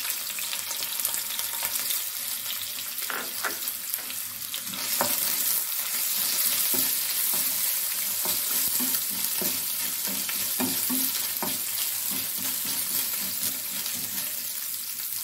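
Coconut pieces, chillies and curry leaves sizzling in hot coconut oil in a non-stick frying pan, stirred with a wooden spatula, with a few sharp clicks and scrapes over the steady frying hiss.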